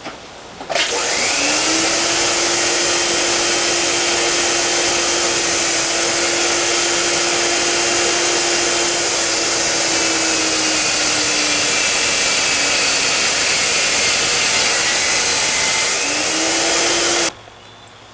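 An electric motor runs for about sixteen seconds with a loud rushing, whooshing noise and a steady hum over it. It spins up about a second in, its hum sags a little partway through, and it cuts off sharply near the end.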